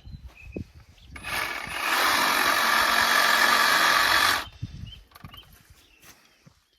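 A reciprocating saw runs for about three seconds, starting about a second in and cutting off sharply.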